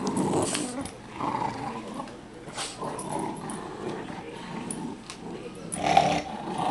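A dog and two puppies growling playfully while tugging on a rope toy, with a louder burst about six seconds in.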